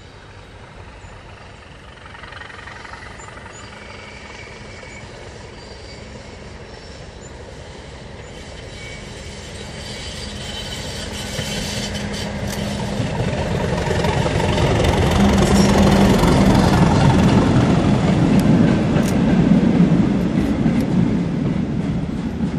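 Class 37 diesel-electric locomotive, English Electric V12 engine running with a steady note, approaching and passing close by. It grows steadily louder, is loudest a few seconds before the end, and then falls away.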